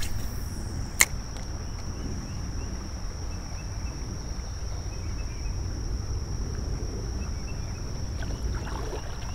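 Spinning-reel cast and retrieve: one sharp click about a second in, typical of the bail snapping shut, then a low steady rumble while the reel is cranked. A steady high insect drone runs underneath.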